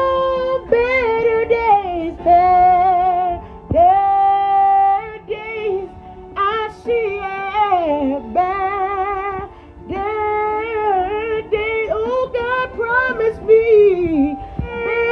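A woman singing long held notes and sliding runs with a wavering vibrato, over faint backing music.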